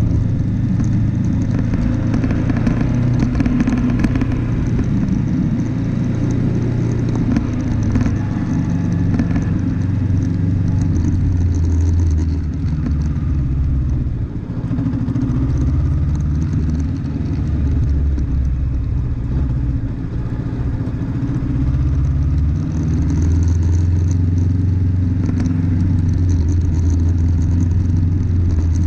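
Vehicle engine running as it is driven off-road, its pitch shifting up and down with the throttle and dipping briefly about halfway through.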